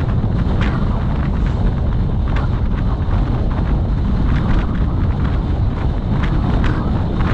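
Wind rushing and buffeting over the microphone of a moving vehicle, a loud steady rumble with road noise beneath it.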